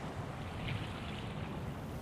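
Ocean waves washing on the shore: a steady rushing of surf, strongest in its low rumble.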